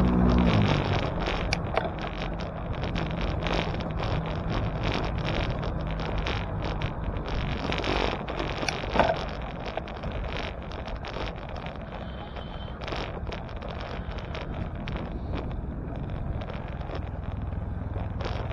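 Wind and road noise from riding a bicycle through city streets, with scattered rattles and clicks. A motor vehicle's engine ends within the first second, and a short brief whine sounds about twelve seconds in.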